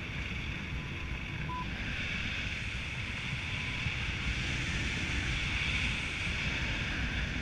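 Wind rushing over the microphone of a paraglider in flight: a steady rushing noise with a low rumble, growing a little louder after about two seconds. A single short beep sounds about a second and a half in.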